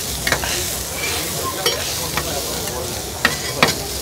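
Soya-based egg bhurji with onion sizzling in a hot pan as it is stirred, with about five sharp clinks against the pan, the loudest a little past three seconds in.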